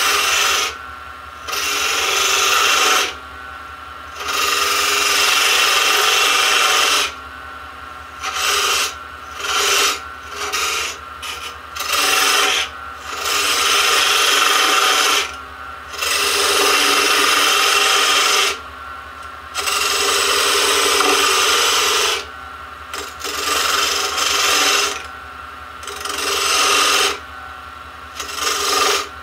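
A parting tool cutting into a spindle spinning on a wood lathe. There are repeated scraping cuts, each lasting one to four seconds, with short pauses between them in which the lathe runs on with a steady hum.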